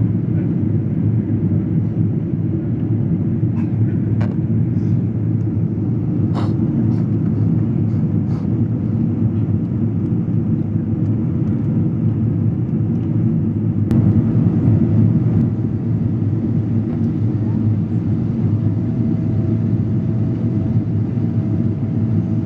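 Steady cabin noise of a Boeing 777-200ER in flight, heard from a window seat: the deep rush of the GE90 engines and the airflow. Under it a faint whine steps up in pitch about two-thirds of the way through, with a slight swell in loudness, and falls away at the end.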